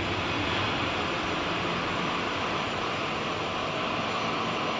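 Steady rushing jet-engine noise from aircraft on the airport, an even hiss with no distinct tones or changes.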